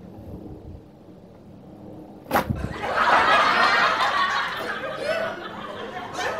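A sudden loud thump about two seconds in, then sustained laughter.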